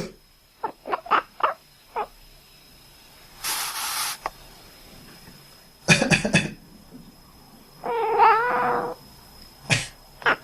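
A person coughing in short bursts, with a cat reacting in between: a hiss about three and a half seconds in and a drawn-out, wavering cry around eight seconds.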